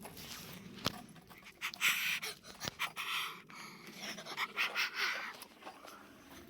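Breathing and panting close to the camera microphone, several uneven puffs, with a couple of sharp handling clicks.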